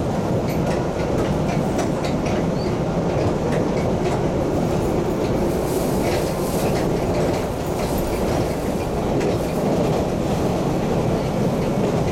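MBTA Red Line subway train running between stations, heard from inside the car: a steady rumble of wheels on rail with scattered clicks and clacks.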